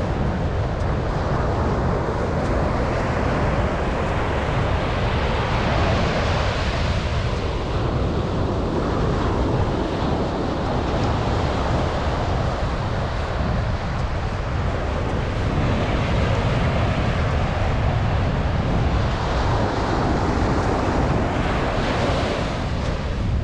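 Atlantic surf washing onto a sandy beach, a steady rush of breaking waves that swells about six seconds in and again near the end. Wind buffets the microphone with a low rumble underneath.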